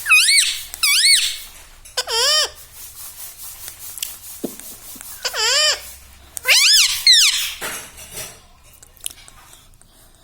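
Pet parrot giving short, high, squeaky calls, each rising then falling in pitch: two at the start, one about two seconds in, another past the middle, and a quick cluster a little later, then it goes quiet.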